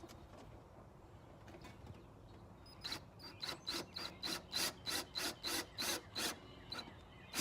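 Hand rasping, a tool drawn back and forth over a body-kit piece to shave it down so it fits. A quick, even run of about a dozen scraping strokes starts about three seconds in, and a single sharp click follows near the end.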